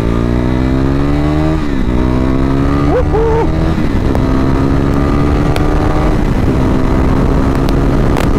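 KTM Duke 390's single-cylinder engine accelerating hard. It climbs in pitch through each gear and drops at each of three upshifts, about two, four and six seconds in, then runs steady at high highway speed.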